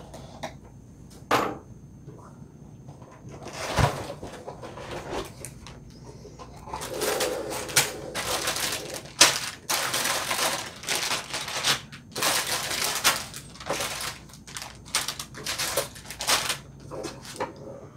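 A cardboard box being opened, with a couple of sharp clicks and a thump, then a run of crinkling plastic bags and rattling LEGO pieces as bagged parts are pulled out and set down on a table.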